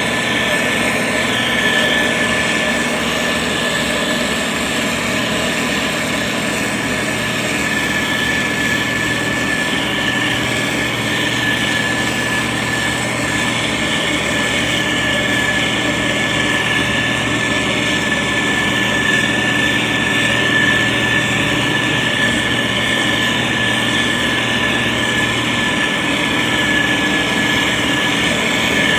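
Diesel engine of a SANY STG190C-8S motor grader running steadily under work, with a steady high-pitched whine over the engine noise.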